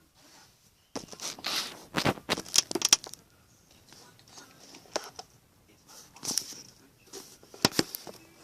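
Homemade dish-soap-and-salt slime being stirred and squished in a small container: irregular bursts of sticky clicking and scraping, densest in the first few seconds and again near the end.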